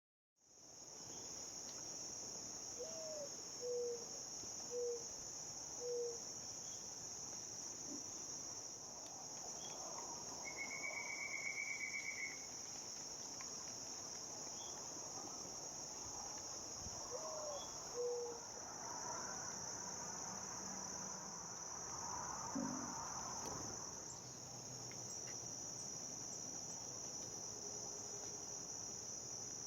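Steady, unbroken high-pitched chorus of crickets and other insects, with a few short, low bird calls a few seconds in and again midway.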